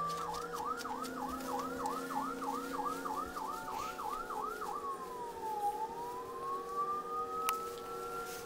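Emergency-vehicle siren sound effect played from a recording. A fast yelp of about three sweeps a second changes about five seconds in to a slow wail that falls, then rises. A single sharp click comes near the end.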